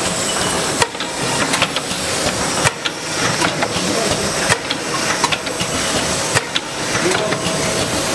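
Automatic pyramid tea bag packing machine running: a steady hiss with sharp mechanical clicks about once a second.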